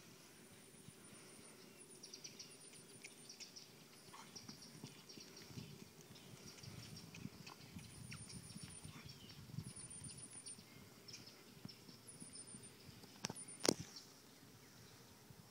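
Faint, irregular thuds of a horse's hooves on the ground as it moves about, with birds chirping faintly high above. Two sharp clicks near the end.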